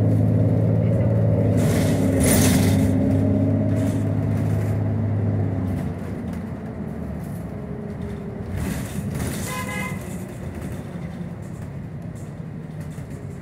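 Inside a city bus: the bus's engine hum, steady and loud for the first six seconds, then dropping to a quieter running note. A short hiss comes about two seconds in, and a brief rattling sound about nine seconds in.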